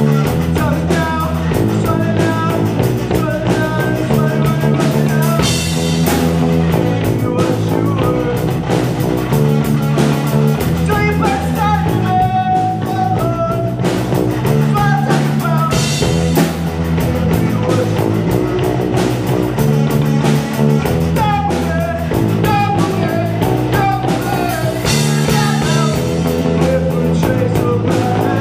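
A live rock trio of electric guitar, electric bass and drum kit playing a song at a steady loud level. A low bass figure repeats every couple of seconds under the guitar line, with bright cymbal crashes a few times.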